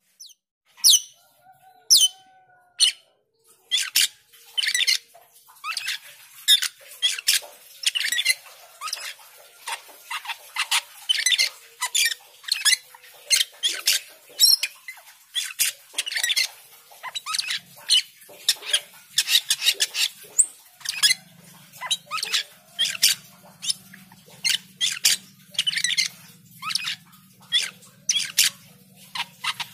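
Asian glossy starling (cucak keling) singing continuously: a fast string of short, high, sharp whistles and chirps, several to the second. A faint low hum comes in about two-thirds of the way through.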